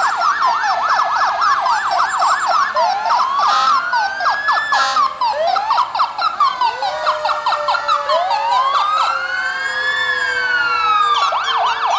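Several fire truck and emergency vehicle sirens sounding at once and overlapping. Fast yelping sweeps at the start and again near the end, with slower wails rising and falling through the middle.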